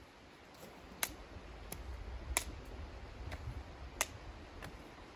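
Sharp cracks of thin dry twigs being handled, about six spread across a few seconds, over a low rumble.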